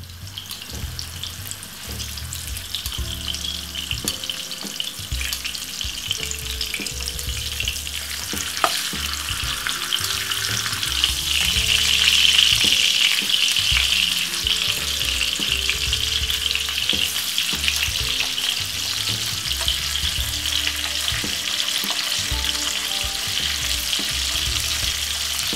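Split frankfurters sizzling in hot oil in a nonstick frying pan. The sizzle swells louder for a few seconds around the middle as they are turned over with metal tongs.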